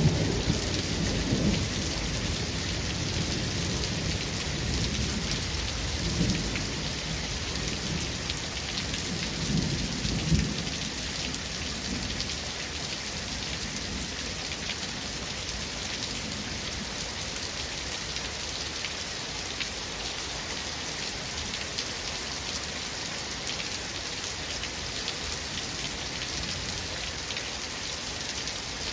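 Steady rain falling, with thunder rumbling low in the first ten seconds or so, in two or three rolls that die away, leaving only the rain.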